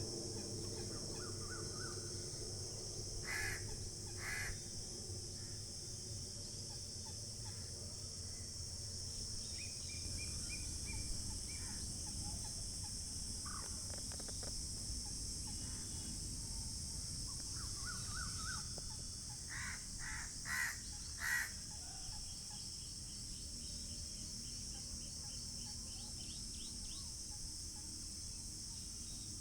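Rural pond ambience: a steady high insect drone, with crows cawing twice early on and then four times in quick succession around the middle, and a few smaller bird chirps. A low rumble fades away during the first ten seconds or so.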